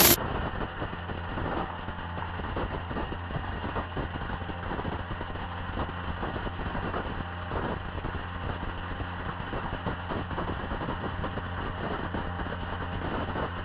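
Personal-size blender running with shredded credit card pieces rattling around the jar, heard slowed down with the slow-motion footage: a low, muffled, steady drone under a constant crackling rattle.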